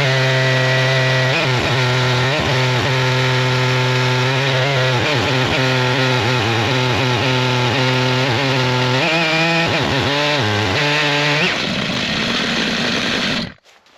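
Stihl MS881 two-stroke chainsaw on an Alaskan chainsaw mill running steadily at high revs while ripping an elm log. Near the end its pitch dips and wavers, then the engine note gives way to a rougher noise and stops suddenly.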